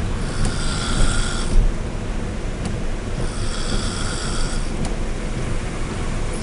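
A woman snoring in a truck cab: two long snores about three seconds apart, each with a high, raspy edge, over a steady low rumble.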